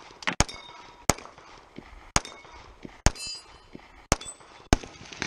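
Six pistol shots at an even pace of roughly one a second, with steel plate targets ringing briefly with a high clang as they are hit, the longest ring after the fourth shot.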